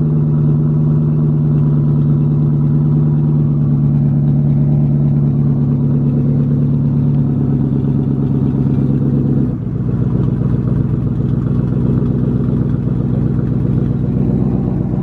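Chrysler 300C's Hemi V8 idling through its exhaust shortly after a cold start, a steady even note. About two-thirds of the way through the note changes abruptly and settles a little lower and quieter.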